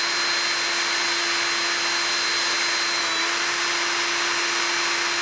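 Handheld cordless drill running at a steady speed with a constant whine, its 3/32 bit drilling into the center of a carburetor's air/fuel mixture screw.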